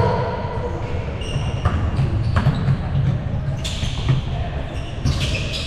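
Indoor basketball game in an echoing gym: the ball bouncing on the court with a few sharp thuds, amid indistinct voices.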